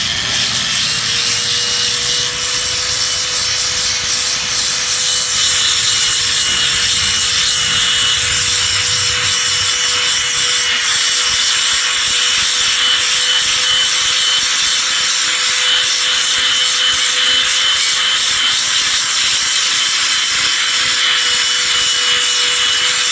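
Handheld water-fed wet grinder running steadily with a coarse 50-grit polishing pad, grinding across the face of a rock: an even motor whine under a loud, hissing scrub of pad on wet stone.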